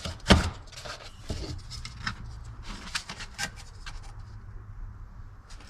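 Hard plastic knocks and rubs as a replacement car speaker is handled and test-fitted into its mount: one sharp knock near the start, then a few lighter taps, over a faint low hum.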